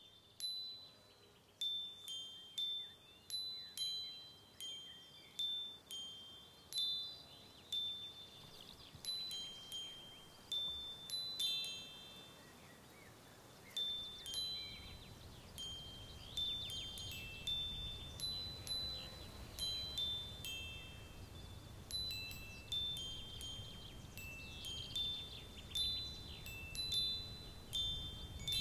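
High, bell-like chime tones struck one after another, each ringing and fading away. About halfway through a low rumble joins underneath.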